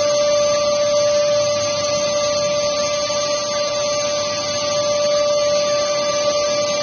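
Canister vacuum cleaner running steadily, a constant motor whine over rushing air.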